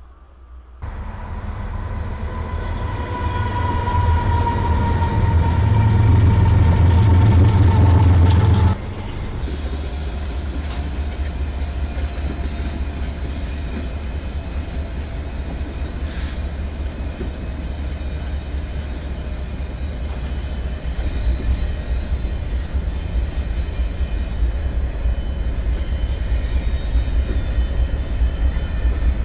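An Amtrak train led by an electric locomotive approaches, a heavy rumble growing louder under a slowly falling whine. It cuts off abruptly about nine seconds in and gives way to the steady rumble of a Union Pacific freight train rolling by, diesel locomotives hauling covered hopper cars.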